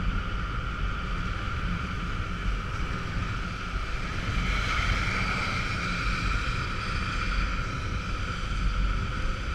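Motorcycle riding on a wet road: wind buffeting the microphone over the steady running of the engine, which strengthens a little about halfway through.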